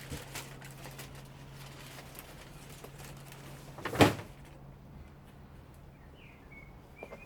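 A single sharp knock about four seconds in, with a low steady hum until then. A short, thin high chirp near the end.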